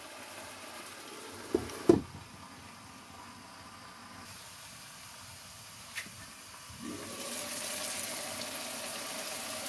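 Glass lid set down on a wok with two sharp clinks about two seconds in, the tuna and tomato sauce simmering quietly beneath it. A small click near six seconds, then the bubbling of the simmering sauce grows louder about seven seconds in as the lid comes off.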